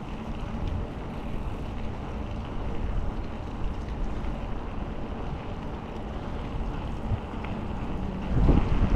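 Wind buffeting the microphone of a camera on a moving bicycle: a steady low rumbling noise, with a stronger gust near the end.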